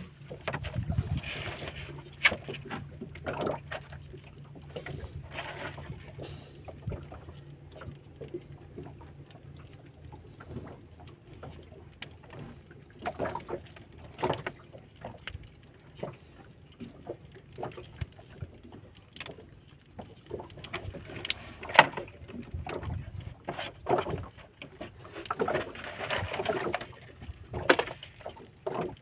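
Crabs being handled in a plastic tub: irregular clicks and knocks of shells and claws against each other and the plastic, with rustling as blue swimming crabs are picked out of a fishing net. A faint low hum runs underneath for the first third.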